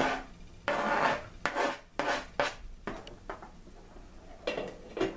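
Diced boiled eggs being scraped off a green plastic utensil into a plastic mixing bowl: a quick run of short scraping and rubbing strokes, about six in the first three seconds, then a pause and two more strokes near the end.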